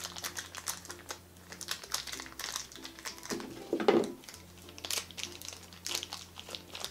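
Packaging of a small toy food dish being opened by hand: irregular crinkling and light clicking, with a louder rustle about four seconds in.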